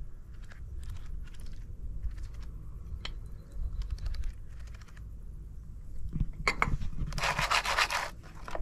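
Scattered light clicks and taps of kitchen utensils and cookware being handled. A short, dense rustling hiss comes about seven seconds in.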